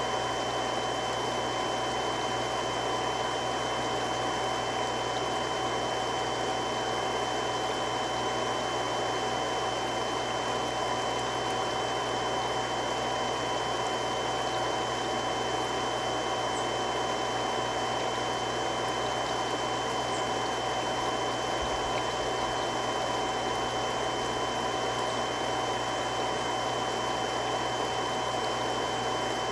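Three-stage irrigation water pump running steadily: an even whooshing hum with a few constant high tones over it.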